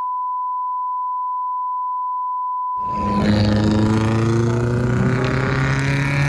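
A steady high beep tone held for about three seconds. Then a Nissan 240SX with a 4-inch ISR exhaust and high-flow cat comes in accelerating, its exhaust note climbing slowly in pitch.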